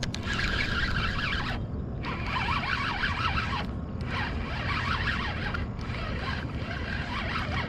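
Fishing reel clicking in four runs of about a second and a half each, with short gaps between, as a hooked fish pulls on the line.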